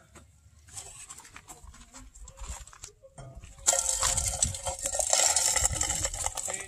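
Faint clicks and rattles from a wire-mesh crawfish trap being handled, then, from about three and a half seconds in, a loud, close crackling rustle of dry pine needles underfoot.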